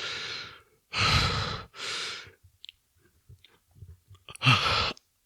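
A man breathing hard with effort between reps of an exercise set. There are three quick heavy breaths, a pause with a few faint mouth clicks, then a louder exhale with voice in it near the end.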